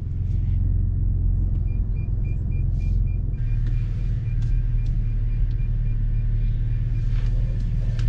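Car engine running low and steady while reversing slowly, with a reversing beeper chirping about four times a second from about two seconds in.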